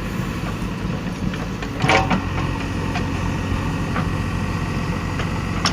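Diesel engine of a JCB 3DX backhoe loader running steadily, with a brief loud metallic clatter about two seconds in and a sharp click near the end.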